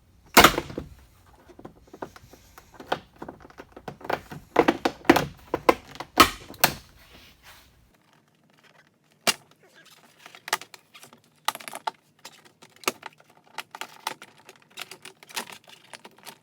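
Plastic door trim and clips of a Jeep Wrangler JK being worked loose by hand: irregular clicks and knocks. They are loudest just after the start and again around the middle, then fall to lighter ticking.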